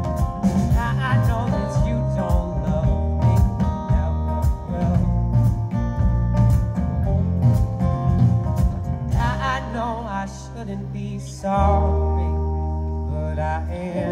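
Live rock band playing an instrumental passage: drum kit, bass, and acoustic and electric guitars, with a lead line of wavering, bent notes over the top. About ten seconds in the drumming stops and the band holds long chords.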